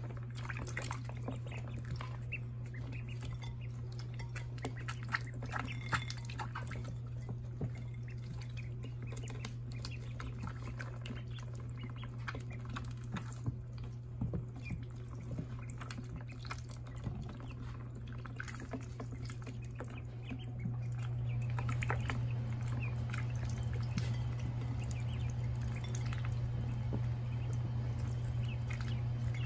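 Ducklings drinking and dabbling at a plastic waterer, with small splashes, drips and bill clicks in the water. A steady low hum runs underneath and grows louder about two-thirds of the way through.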